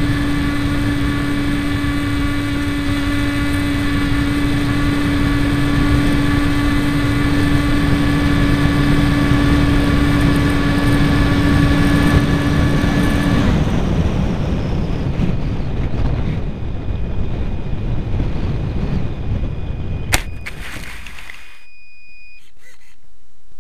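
Bixler radio-control plane heard from a camera on board: its electric motor and propeller run at a steady pitch, then cut off about 13 seconds in, leaving a rush of air as it glides down. About 20 seconds in there is a sharp knock as it touches down on grass, followed by a brief scrape as it settles.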